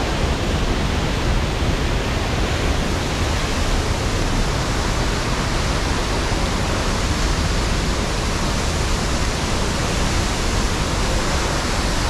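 Tad Yeuang waterfall rushing: loud, steady falling water with a deep low rumble under it.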